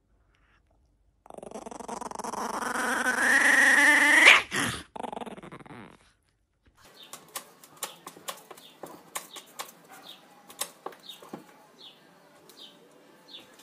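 Small puppy, a Chihuahua type, giving one long drawn-out call that climbs steadily in pitch for about three seconds before breaking off. Then faint scattered clicks and short high squeaks follow.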